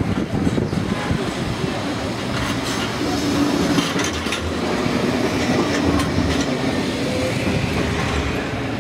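Heritage Blackpool tram running along its track, with a steady rumble and paired clicks as the wheels cross rail joints. A modern tram passes close alongside on the other track about four seconds in.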